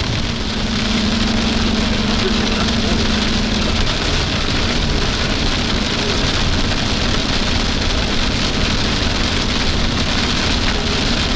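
Steady rain hitting a moving car, with road and engine noise underneath and a low steady hum during the first few seconds.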